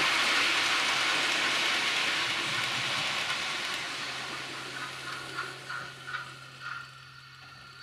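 A model train with a DCC sound steam locomotive running past on the layout's track: a loud hissing rush of wheels and steam sound that fades away over the first four seconds. After it a steady low hum remains, with faint regular beats about twice a second.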